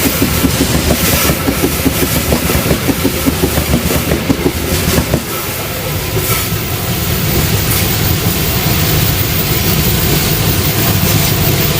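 Diesel-electric main-line locomotive running, with a fast rhythmic clatter for about the first five seconds. The clatter then gives way suddenly to a steadier low engine drone that slowly grows louder.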